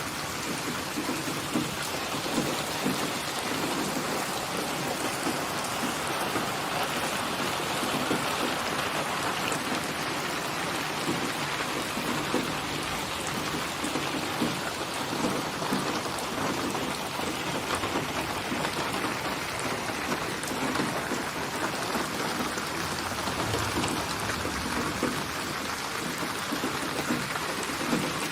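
Steady, heavy rain falling, a dense even hiss with fine patter of drops on surfaces.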